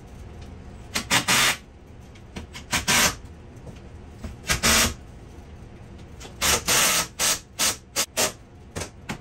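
Cordless drill driving screws into the back edge of a steel UTV roof, running in several short bursts with a run of quick pulses near the end as the screws are snugged down.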